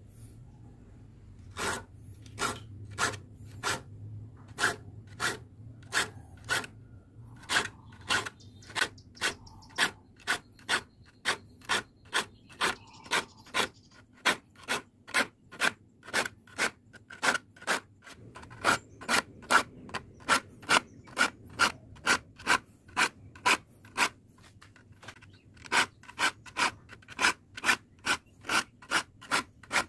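Hand file being stroked across the teeth of a crosscut handsaw to sharpen them, a steady rhythm of short rasping strokes at about two a second with a brief pause near the end.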